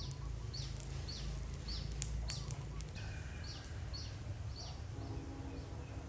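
A bird repeating a short, sharp, falling chirp about twice a second, over a steady low rumble.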